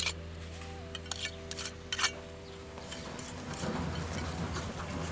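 Steel trowel clinking and scraping against granite curbstones while mortar is worked into the joints: a handful of sharp clinks in the first two seconds, then a rougher scraping noise from about halfway through.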